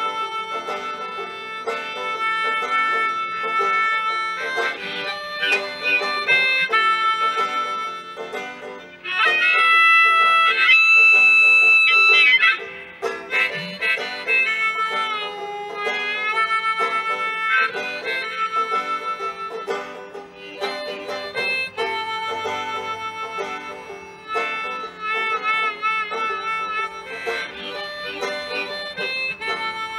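Harmonica and banjo playing an instrumental passage together. The harmonica holds a loud sustained chord about nine seconds in and plays a warbling trill near the end, over steady banjo picking.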